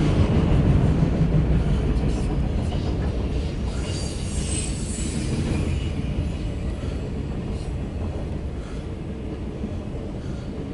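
Loaded autorack freight train rolling past: a steady rumble of wheels on rail that slowly fades, with a faint high wheel squeal about four to five seconds in.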